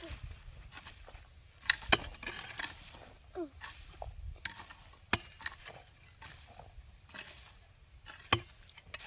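Scattered sharp knocks, a hoe blade striking hard ground, a few seconds apart, with a short falling chirp between them.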